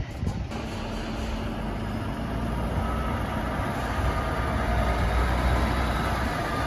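Heavy truck's diesel engine running at low speed as the truck moves slowly. It gets louder from about four seconds in and eases off near the end.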